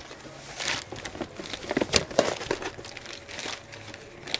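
Clear plastic bag crinkling as it is pulled off a cardboard box, in a run of irregular rustles that are loudest about two seconds in.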